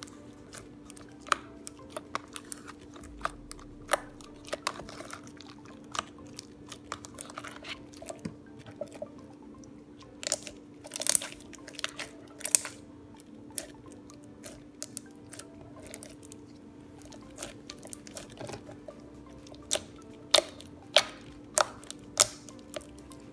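Blue floam, a slime packed with foam beads, being kneaded and pressed by hand, giving irregular crackling clicks and pops as the beads crunch and the slime squishes. The pops come in louder clusters about halfway through and near the end.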